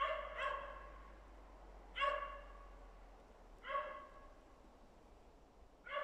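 Dachshund barking: a quick pair of barks, then single barks about every two seconds.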